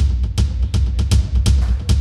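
Background music with a steady drum beat, about four hits a second, over heavy bass.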